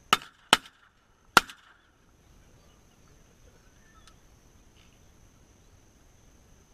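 Three shotgun shots in quick succession: the second about half a second after the first, the third almost a second later, each with a brief ring-out.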